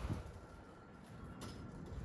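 Faint railway-platform background ambience with a thin steady whine and one light click about one and a half seconds in.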